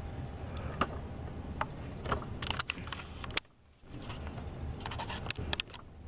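A stiff mesh sheet is being handled and bent into a cone, giving scattered light clicks and crackles over a steady low hum. The sound drops out briefly about halfway through.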